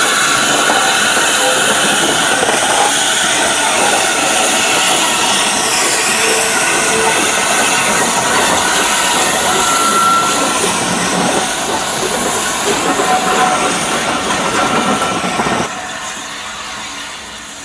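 Steam locomotive 71000 Duke of Gloucester, a BR Standard Class 8 Pacific, hissing steam loudly and steadily at close range as it moves slowly alongside. About two seconds before the end the sound cuts to a quieter, more distant train running.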